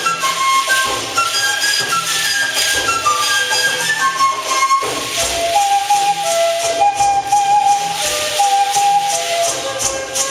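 Folk dance music: a high flute melody in short stepping notes over shaken rattles and steady percussion. The melody drops to a lower register about halfway through.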